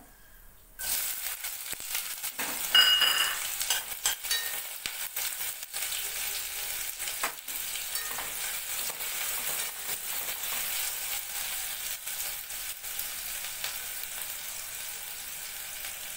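Sliced onions tipped into hot coconut oil in a pot, bursting into a sizzle about a second in, loudest near three seconds, then frying steadily. The onions are being stirred, with scattered clicks and scrapes of the spoon against the pot.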